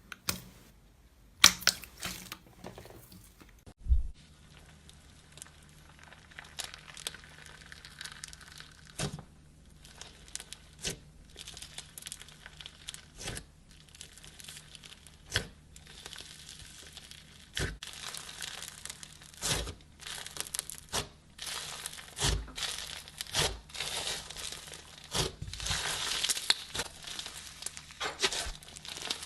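Slime being squeezed and stretched by hand, giving off a run of crackles and pops that grows denser in the second half, with a couple of sharper pops near the start.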